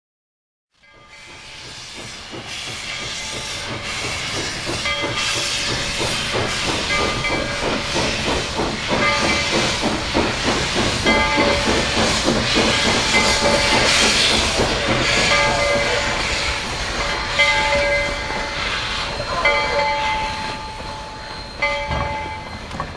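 Narrow-gauge K-27 No. 463, a 2-8-2 steam locomotive, working with rapid exhaust chuffs and loud steam hissing. It builds up over the first half and eases a little near the end. A bell rings at intervals throughout.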